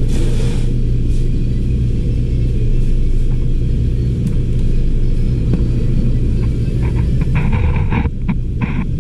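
Steady low rumble throughout, with a short hiss at the start and a cluster of brief higher sounds about seven seconds in.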